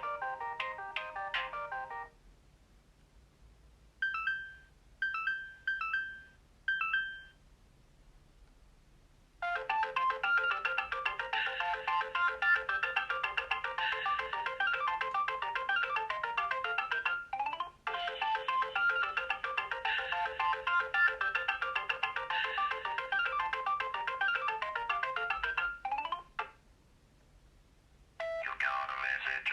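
Alcatel OT 735 mobile phone playing its built-in ringtones one after another: a melody ending about two seconds in, then four short electronic beeps, then a long melody with a brief break about halfway, and another ringtone starting near the end.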